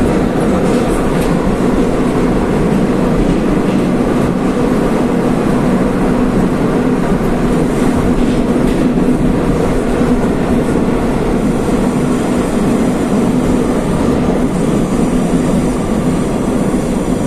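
Interior running noise of a Rusich metro train (81-740/741) moving at a steady speed: an even rumble of wheels and running gear with a steady low hum.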